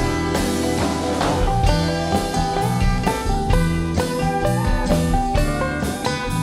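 Live folk band playing a song: plucked guitar over a drum kit keeping a steady beat.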